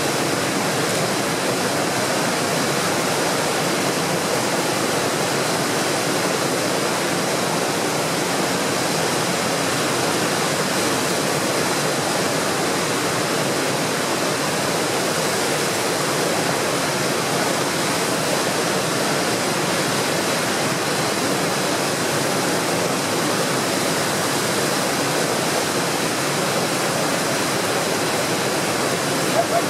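Tidal rapids rushing steadily: fast current and whitewater breaking over a large standing wave, an even, unbroken rush of water.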